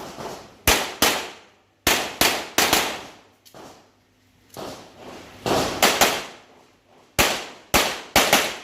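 Handgun shots fired in a string: about a dozen sharp reports, many in quick pairs a few tenths of a second apart, as in IPSC double taps. Each shot trails off in echo.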